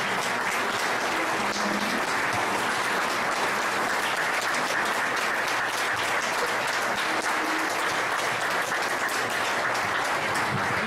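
Audience applauding steadily, the clapping of a whole room.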